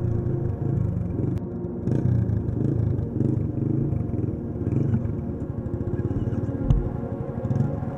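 Dirt bike engine running under varying throttle on a trail, rising and falling in pitch, with one sharp thump near the end.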